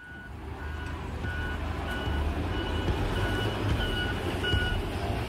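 Volvo L150H wheel loader's diesel engine running with a low rumble, while a reversing alarm beeps at an even pace, roughly three beeps every two seconds, as the loader manoeuvres.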